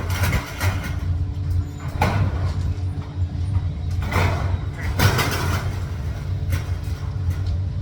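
A steady low mechanical hum with several sharp knocks or clatters spread through it.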